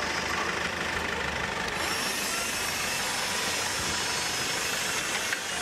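Car engine idling steadily just after being started. A steady high hiss joins about two seconds in.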